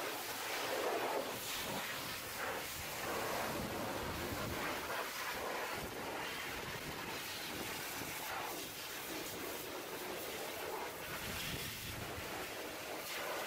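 Pressure-washer jet spraying against a dump truck's steel chassis frame and wheel-well parts: a steady hiss of high-pressure water that shifts in tone as the spray moves across surfaces.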